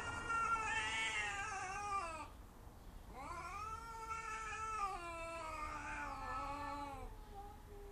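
Cats caterwauling: long, drawn-out wailing yowls that waver and slowly fall in pitch. One yowl breaks off about two seconds in, and another rises about a second later and runs for several seconds.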